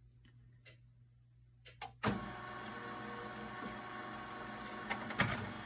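HP colour printer restarting after a reset to factory defaults. A few faint clicks, then about two seconds in its motors and fan start all at once into a steady whirring hum as it begins initializing.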